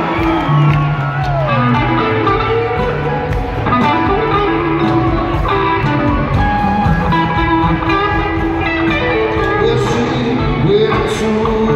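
Live rock band playing in an arena, heard from the audience: an electric guitar leads with gliding, bent notes over bass and drums.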